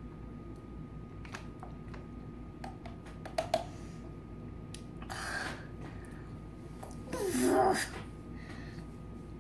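A light plastic knock about three and a half seconds in, as a water bottle is set down on a wooden table. A child's sharp breath out follows a couple of seconds later. Near the end comes a short wordless vocal sound that bends in pitch.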